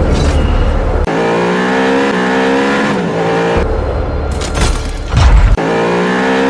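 Edited soundtrack of music mixed with car engine sounds, the sound changing abruptly every second or two.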